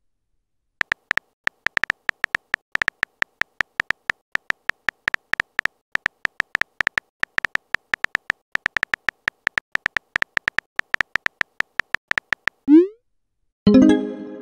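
Texting-app keyboard clicks, one short tick per typed letter at several a second, as a message is typed. Near the end comes a short rising swoosh as the message is sent, then a brief chime.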